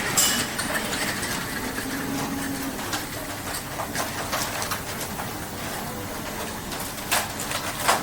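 Steady industrial noise of abattoir machinery, with a few sharp metal clanks or knocks.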